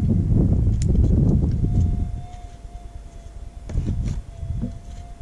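Metal detector giving a steady high tone that starts about two seconds in and holds, over loud low rumbling noise in the first two seconds and a couple of sharp knocks as soil is worked with a pick.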